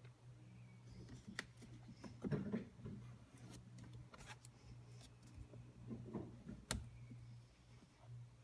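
Light clicks, taps and rustling of hands at work, over a low steady hum; a louder rustle about two seconds in and a sharp click near the end.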